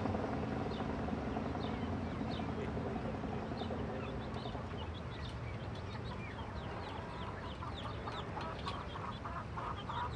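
Farmyard hens clucking, loudest in a run of calls near the end, over many short, high, falling bird chirps.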